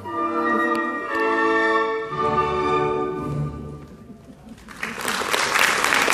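Orchestral music playing for the dance ends about four seconds in, and audience applause breaks out just before five seconds and builds.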